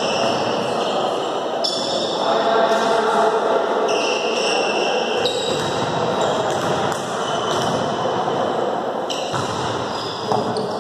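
Echoing sports-hall din of volleyball players' voices with a ball bouncing on the court floor, and a sharper thud about ten seconds in.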